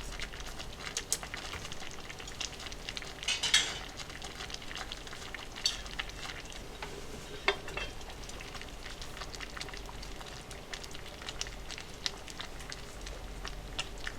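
Food frying in a pan: a steady sizzle with scattered crackles and pops, and a few sharper clicks about three and a half, six and seven and a half seconds in.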